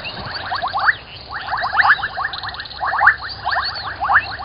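A chorus of frogs calling: quick runs of sharp chirps, several to a run, following one another about twice a second, with fainter, higher chirping behind them.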